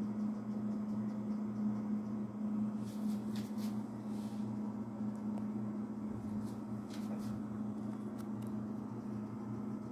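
Steady low mechanical hum, with a few faint brief ticks about three seconds in and again around seven seconds.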